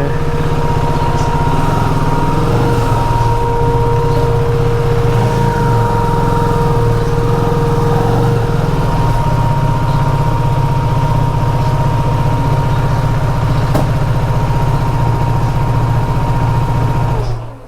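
KTM RC 390's single-cylinder engine, newly installed, idling steadily, then switched off near the end, cutting out suddenly.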